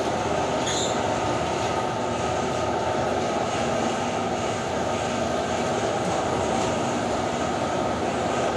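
Steady, loud running of commercial laundry machinery, an even mechanical hum and whir with no breaks. A brief faint squeak comes near the start.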